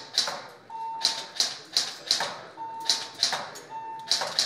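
Airsoft rifle firing single shots in quick succession, sharp cracks a few tenths of a second apart, at an electronic target board. A short electronic beep sounds three times between the shots.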